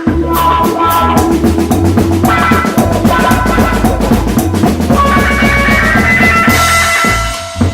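Instrumental funk-rock band jam: a drum kit keeps a busy, fast beat over bass notes and a sustained melodic line. The playing thins out briefly near the end.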